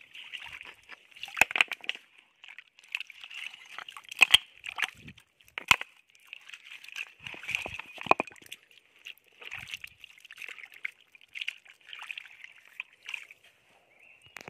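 Shallow stream water sloshing and splashing as hands grope through a drying pool for loaches, in irregular splashes with several sharp louder ones, over a steady high-pitched drone.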